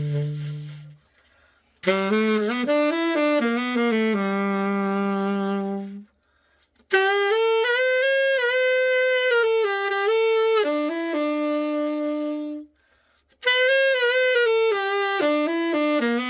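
Selmer Mark VI tenor saxophone played in short melodic phrases of held notes, with brief pauses of about a second between them, as a play-test after a full overhaul.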